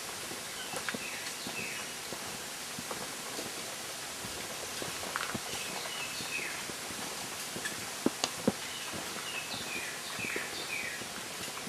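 Footsteps on a forest trail with scattered sharp knocks, over a steady outdoor hiss. Little runs of short, falling bird chirps come and go, about a second in, around the middle and near the end.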